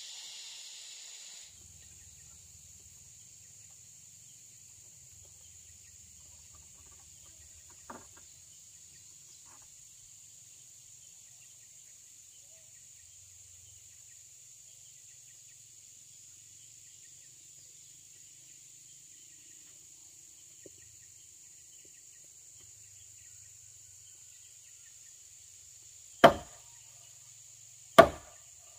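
Steady high-pitched insect drone. Near the end a long-handled hammer strikes a timber house-frame column twice, about two seconds apart, loud sharp knocks on wood.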